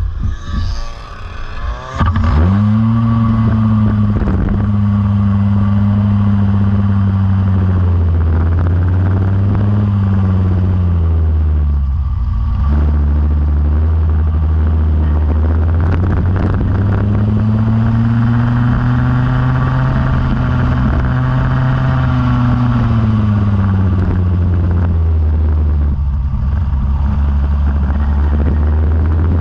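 Go-kart engine running under load, its pitch rising and falling as the kart speeds up and slows. The engine sound gets suddenly much louder about two seconds in.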